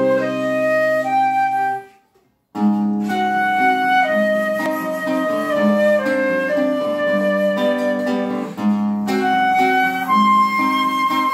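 Concert flute and classical guitar playing a duet: the flute carries a melody in held notes over plucked guitar chords. The music breaks off for about half a second about two seconds in, then starts again.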